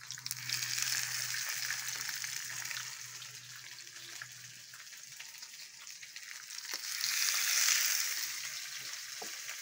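Breaded pollock pieces sizzling in hot vegetable oil in a ribbed grill pan as they are laid in. The sizzle jumps up just after the start and swells again about seven seconds in as another piece goes into the oil.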